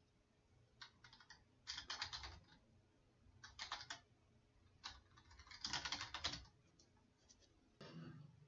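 Faint typing on a computer keyboard, in about seven short bursts of keystrokes with pauses between, as short terminal commands are typed.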